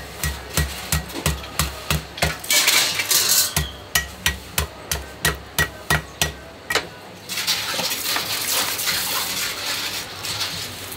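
A cleaver chopping lemongrass stalks on a wooden chopping block, sharp knocks at about three a second. About seven seconds in the chopping stops and water splashes as the lemongrass is rinsed in a basin.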